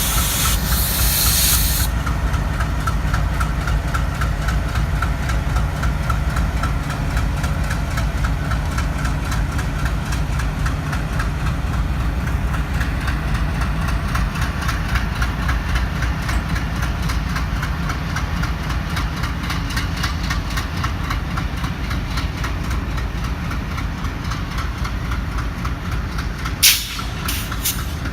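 Twin ALCO WDG3A diesel-electric locomotives running, their engines giving a steady low rumble with a rhythmic chugging beat. A burst of hiss comes in the first two seconds, and a single sharp knock comes near the end.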